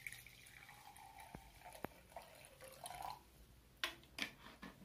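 Petrol poured from a plastic bottle into a glass tumbler: a faint, thin trickle of liquid into the glass, followed by a few soft clicks near the end.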